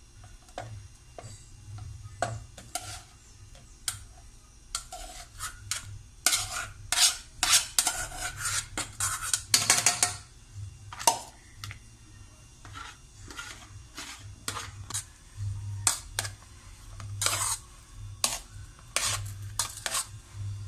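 A utensil stirring diced potato, carrot, egg and sausage in a bowl: irregular clinks and scrapes against the bowl, busiest in the middle.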